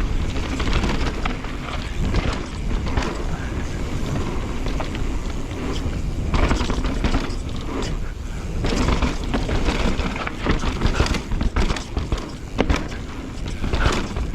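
Wind buffeting a helmet camera's microphone over a Pivot Switchblade full-suspension mountain bike descending a rough downhill trail at speed: tyres on dirt and roots, and irregular knocks and rattles from the bike, heaviest near the end.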